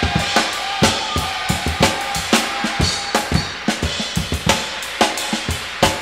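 Rock band recording with the drum kit out front: kick and snare hits several times a second, with a few held notes from other instruments above.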